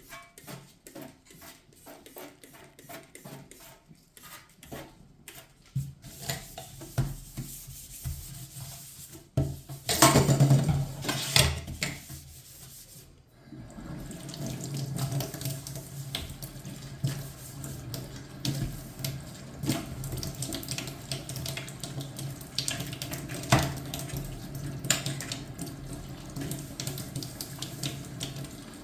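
Water running from a kitchen tap into a sink, with scattered clicks and knocks. The tap comes on about six seconds in, is loudest around ten seconds in, and then runs steadily through the second half.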